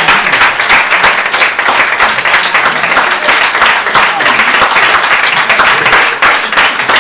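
Audience applauding: dense, steady clapping from many hands, with voices mixed in.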